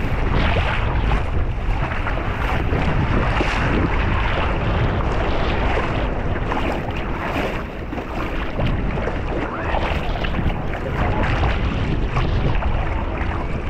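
Sea waves washing at the shore, with wind buffeting the microphone in a steady rush of noise.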